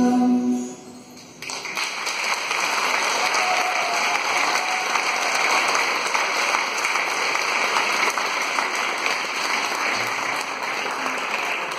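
The last held note of the music dies away in the first second, then the audience applauds, a steady clapping from about a second and a half in to the end.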